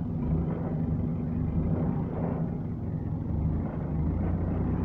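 Forklift engine running with a steady hum, its low rumble swelling several times as the forklift manoeuvres.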